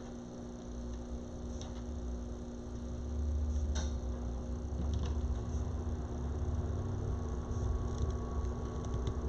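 Steady electrical hum, with a low rumble that grows about three seconds in and a few faint clicks.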